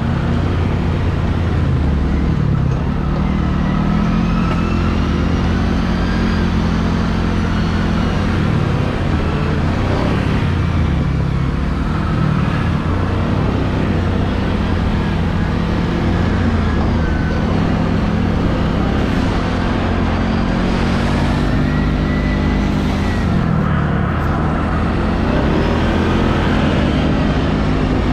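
Can-Am Renegade 1000 ATV's V-twin engine running under way on a dirt trail, its revs rising and falling.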